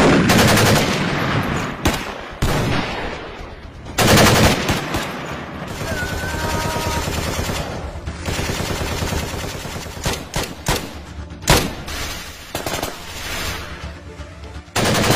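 Gunfire: long bursts of rapid automatic fire with loud single shots among them, echoing.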